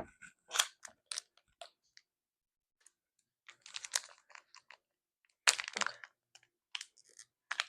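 Small plastic packaging and slime add-ins being handled and tipped out: scattered light clicks, taps and crinkles in irregular clusters.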